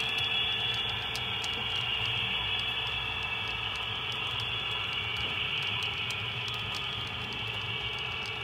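Model railroad hopper cars rolling past on the track: a steady rolling hiss from the wheels, with many light clicks.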